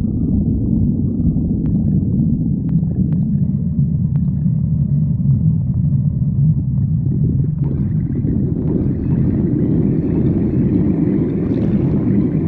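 Stomach growling: a continuous low rumble that takes on a higher, hissier edge about seven or eight seconds in, with a few faint clicks a couple of seconds in.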